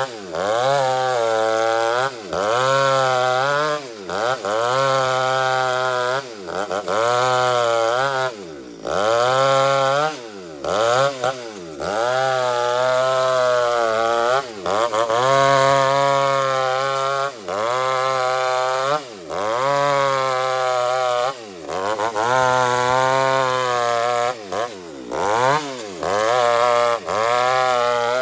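Two-stroke chainsaw running hard while ripping an old teak log lengthwise. Its engine pitch dips sharply and climbs back roughly every two seconds.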